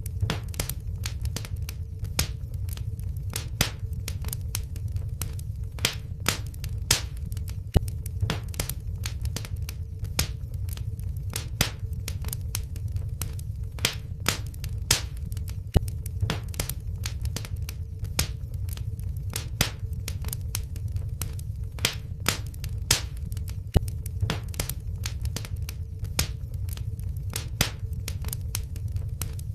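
Wood fire crackling in a fireplace: irregular sharp pops and snaps, several a second with louder ones every second or two, over a steady low rumble of the flames.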